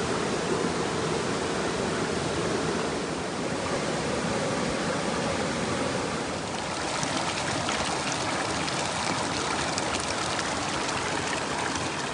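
Mountain stream running over rocks: a steady, even rush of water close by, with light clicks joining in about halfway through.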